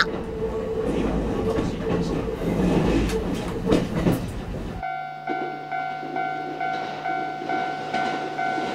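Kintetsu electric trains on the track. First comes the rumble and rattle of wheels on rail as a train runs past. Then, after an abrupt change about five seconds in, an approaching train gives a steady electric hum on several notes.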